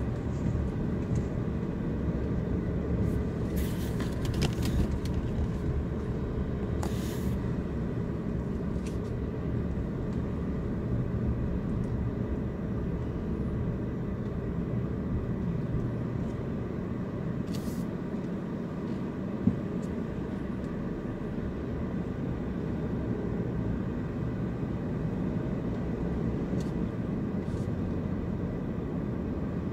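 Steady low road and engine rumble of a car being driven, heard from inside the cabin. A few brief sharp noises cut through it, with one sharp tick about 19 seconds in.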